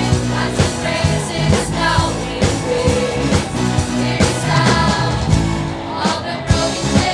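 Youth choir singing an upbeat church song over instrumental accompaniment with a steady drum beat.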